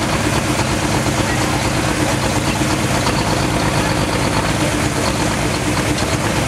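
Modified pulling tractor's engine idling, loud and steady, with no revving.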